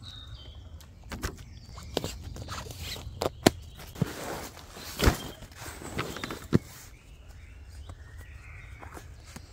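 Outdoor gear being packed by hand: nylon fabric rustling and crinkling, with a series of sharp clicks and knocks over the first seven seconds or so, then softer handling noise. Faint bird chirps sound in the background.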